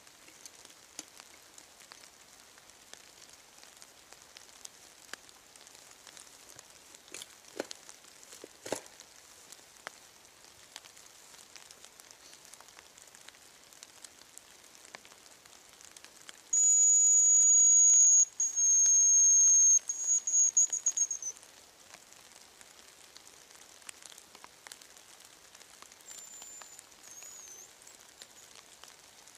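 Hazel grouse call blown on a whistle lure: two long, thin, very high whistles, then a broken trill, loud and close. A fainter short whistle follows near the end. Light drizzle patters throughout, with a couple of sharp clicks before the call.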